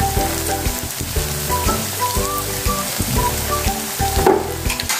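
Cassava hash brown patties sizzling and bubbling in hot oil in a frying pan, under background music. A brief knock about four seconds in.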